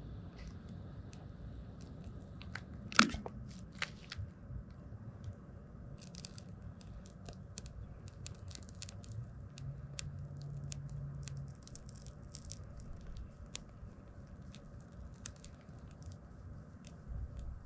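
Scattered crackles and snaps as a campfire is being got going, with one loud snap about three seconds in and smaller crackles coming irregularly after it.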